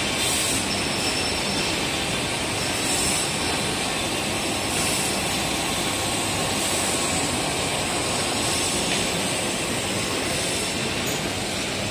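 Steady mechanical din of a large panel-furniture factory's production-line machinery and conveyors, with short bursts of high hiss recurring every second or two.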